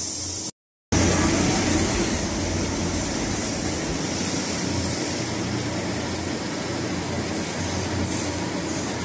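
Steady din of a machine shop of running Tsugami Swiss-type CNC lathes, a dense mechanical noise with a low hum underneath. The sound drops out completely for a moment about half a second in, then comes back a little louder.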